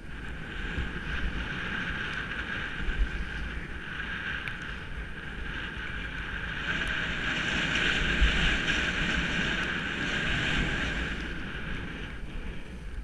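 Skis running through soft fresh snow, a steady hiss that swells in the middle and eases near the end, with wind buffeting the microphone.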